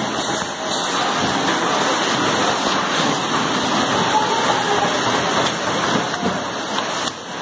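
Steady rushing noise from an 8-head oil filling machine at work, oil streaming from its nozzles into plastic jerrycans.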